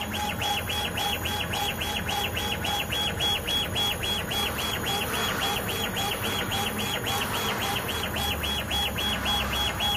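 CO2 laser engraving machine raster-engraving glass: a high whine from the moving head's drive, pulsing evenly about four or five times a second as the head sweeps back and forth.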